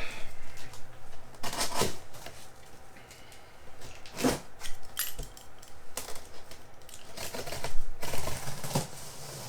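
A knife cutting open a large cardboard box, with irregular scrapes, rips, clicks and knocks as the blade and box are handled.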